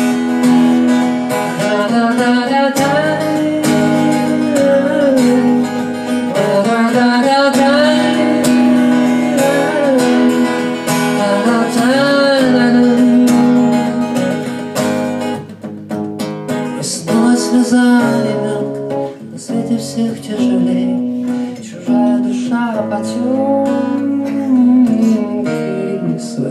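An acoustic guitar being strummed, with a wavering melody line carried over it: an instrumental break between sung verses of a song. The playing thins out and becomes more broken up about halfway through.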